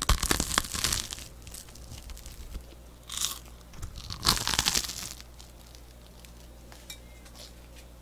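Crisp butter-toasted white bread bitten and crunched close to the microphone, in two bouts of crunching: one at the start and a longer one about three seconds in.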